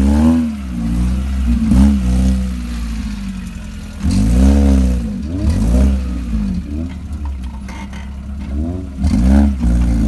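Suzuki Gypsy 4x4's engine revving hard in repeated bursts, its pitch swinging up and down every second or two.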